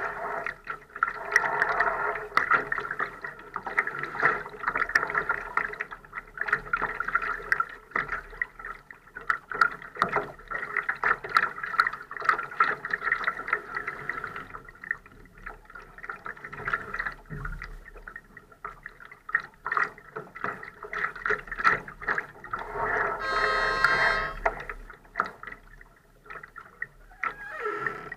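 Water splashing and gurgling against a Laser dinghy's hull, broken by many irregular small taps and clicks. A short, high pitched sound stands out near the end.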